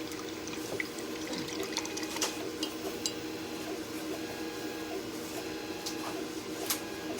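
Laser cutter running a cutting job: a steady hum with a few faint, light clicks.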